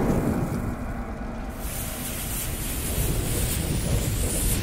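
Intro sound effects: a low rumble, joined about one and a half seconds in by a rushing hiss.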